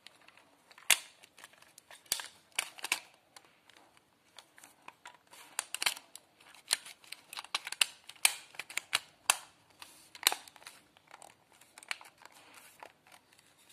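Hard plastic parts of a toy ball pistol clicking and snapping as they are fitted back together by hand: a long run of irregular sharp clicks.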